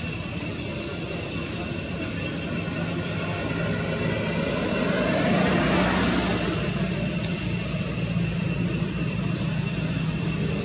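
Engine noise of a passing vehicle swells, loudest about five to six seconds in, then fades, over a steady thin high whine.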